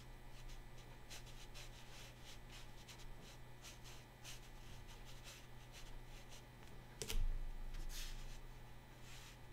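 Faint, quick strokes of a thin watercolor brush on paper as blades of grass are flicked in, with a soft knock about seven seconds in and a brief swish just after. A steady low hum runs underneath.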